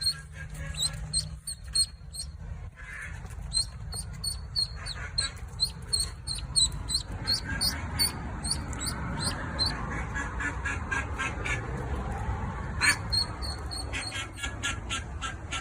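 Birds calling: a long run of short, high chirps, several a second, growing busier about halfway through.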